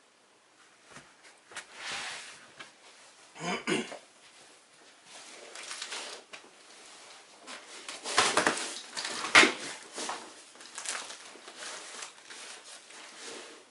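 Handling noise as a man sits down on a bed and shifts a packed rucksack beside him: irregular rustling of fabric and bedding with knocks, the loudest knocks a little past the middle.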